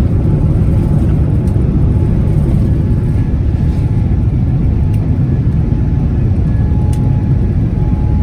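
Boeing 787-10 cabin noise during the initial climb: the engines at climb thrust and the airflow make a steady, loud low rumble, with a faint thin tone joining about seven seconds in.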